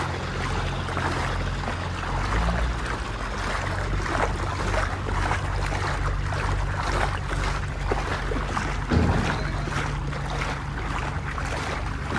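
Diesel engine of a JCB 3DX backhoe loader running steadily while the machine moves in shallow muddy water. A short thump about nine seconds in.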